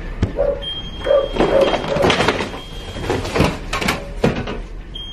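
A dog barking in short barks, mixed with knocks and rubbing as the camera is handled and set down on a cloth-covered table. The loudest knocks come in the middle and near the end.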